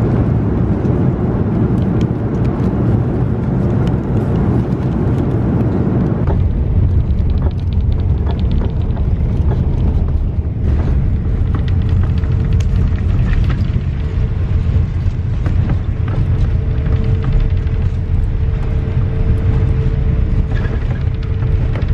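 Passenger jet cabin noise: a loud, steady rumble of engines and airflow. About six seconds in it changes to the rumble of the jet taxiing after landing, with a steady hum-like tone running through the second half.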